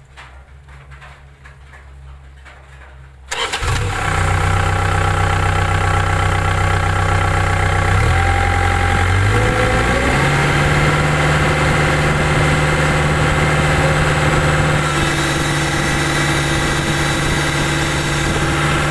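Caterpillar 305.5E2 mini excavator's diesel engine starting about three seconds in, then running steadily. Its pitch drops and then rises again around eight to ten seconds in.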